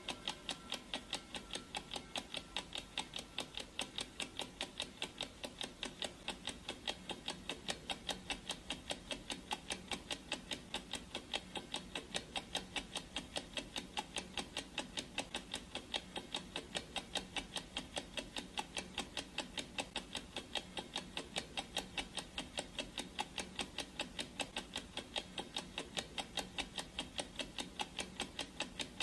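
Clock ticking sound effect: an even, unbroken run of sharp ticks, several a second.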